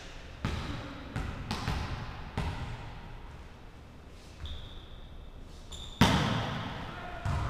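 A volleyball bouncing a few times on a hardwood gym floor, then a loud smack of the ball being hit about six seconds in, ringing on in the hall's echo, with another hit near the end. A faint high steady tone sounds for about a second and a half before the loud hit.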